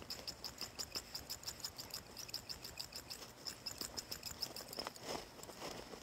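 Insect chirping: a steady run of short, high chirps, about five a second. A brief rustle comes near the end.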